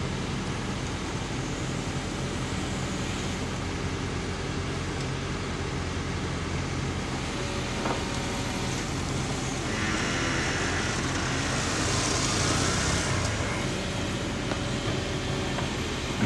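Kobelco SK200 excavator's diesel engine running steadily as the machine tracks down a trailer ramp, with a louder hissing rush about ten to thirteen seconds in.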